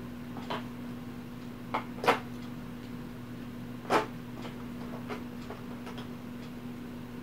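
A few short, sharp clicks and knocks of game miniatures being handled and set down on a table, the loudest about two and four seconds in, over a steady low hum.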